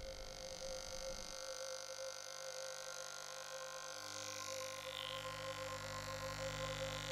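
Electric hair clippers buzzing steadily as they cut through long hair.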